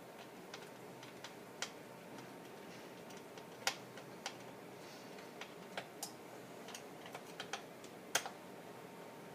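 Irregular light clicks and taps of small metal and plastic parts being handled while road wheels and screws are fitted to a Heng Long Pershing RC tank, with two sharper clicks about four and eight seconds in.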